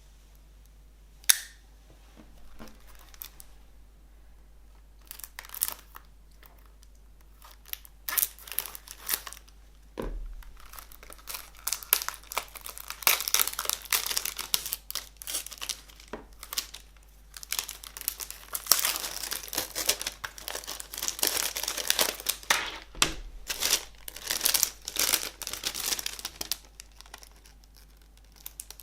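Plastic shrink wrap on a CD case being torn open and crumpled off by hand, in irregular bursts of crinkling. A single sharp click comes about a second in.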